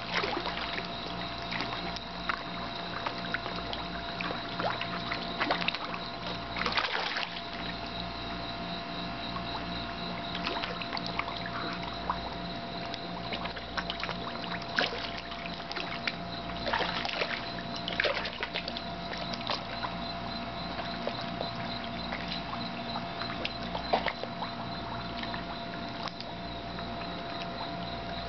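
Water sloshing and splashing as a crowd of catfish feed on floating cat food at the surface, over a steady hum. Louder flurries of splashing come about seven seconds in and again around seventeen to eighteen seconds.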